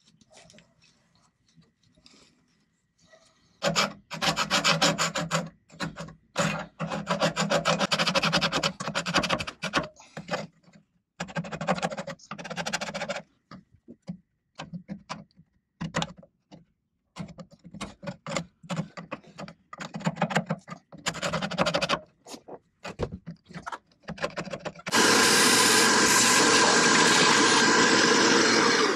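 Chisel and razor blade scraping old gasket material off a boat engine's exhaust manifold, in runs of rapid rasping strokes with pauses between. About four seconds before the end a vacuum cleaner switches on, runs steadily, then is switched off and winds down.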